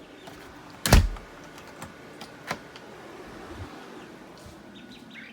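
One loud knock about a second in, followed by a few light clicks and taps.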